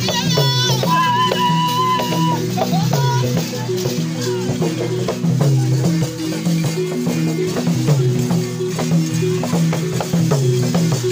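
Live traditional music for a mask dance: a low melody repeats in steps, with rattles shaken in short clicking strokes. In the first two seconds a high wavering tone sounds over the music.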